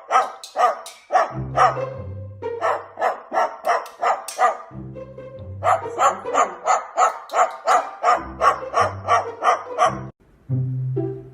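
Rapid, repeated dog-like barks, several a second, over background music. The barking stops about ten seconds in, and the music carries on alone.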